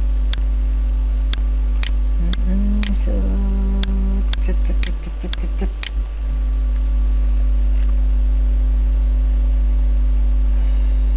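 Loud steady electrical hum with a buzz of evenly spaced overtones. Over it come a dozen or so sharp clicks in the first six seconds and a short low tone about two to four seconds in.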